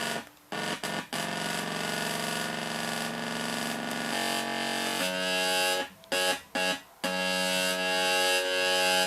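Electronic sound-effects synthesizer putting out harsh, buzzy sustained tones rich in overtones, cutting out briefly several times and shifting to a new pitch about four and again five seconds in.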